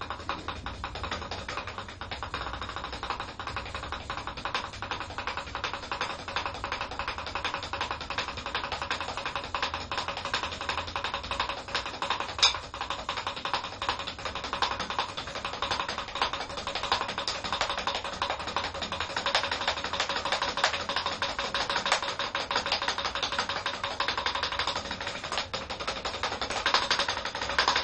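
Drumsticks playing fast, continuous sticking strokes on the rubber pads of a practice-pad drum kit: a dense stream of quick taps with a few louder accents.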